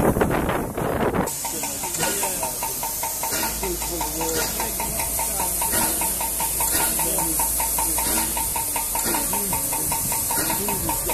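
Steam hissing from a standing USATC S160 2-8-0 steam locomotive, with a louder rush of steam in the first second or so, then a steady hiss. A regular ticking about four times a second runs under it.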